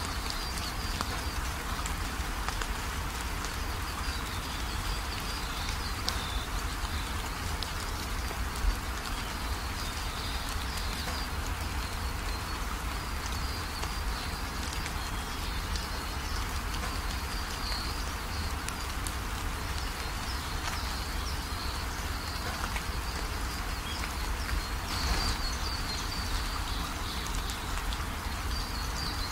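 Steady background hiss with faint high chirping running through it, and a single sharp click about nine seconds in.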